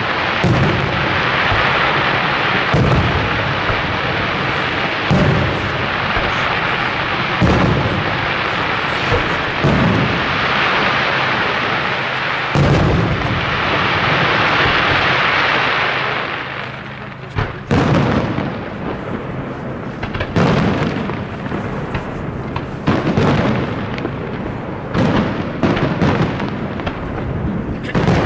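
Aerial firework shells bursting, with a deep boom about every two to three seconds over a continuous dense crackle. In the last third the crackle dies away and many sharp reports follow in quick succession.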